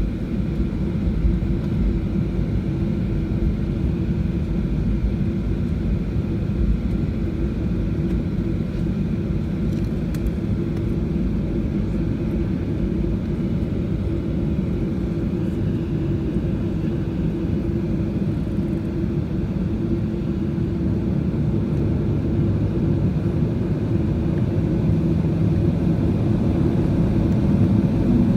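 Steady low rumble of a Boeing 737-800's CFM56 engines and airframe heard inside the passenger cabin, growing slightly louder near the end.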